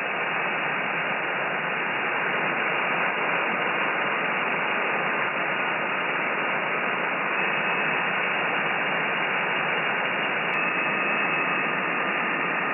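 Steady hiss of shortwave band noise from a FLEX-1500 software-defined radio receiving single sideband with no station transmitting, cut off above about 3 kHz by the receive filter. Faint steady whistles of carriers sit in the hiss, a second, higher one joining about halfway through.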